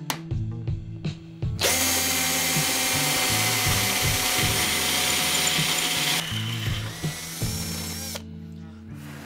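18V combi drill boring a hole through 6 mm steel flat bar with a twist bit. It comes in loud and steady about a second and a half in, runs lighter with a thin rising whine from about six seconds, and stops about eight seconds in.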